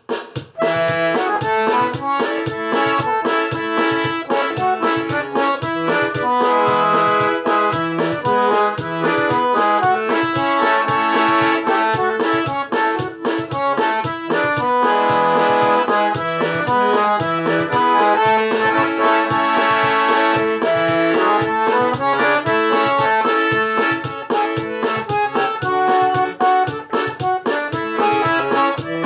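Accordion (sanfona) playing a lively tune: a melody of short notes over a steady, rhythmic bass accompaniment.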